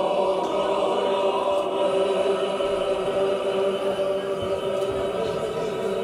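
Choral music, a choir singing long held notes.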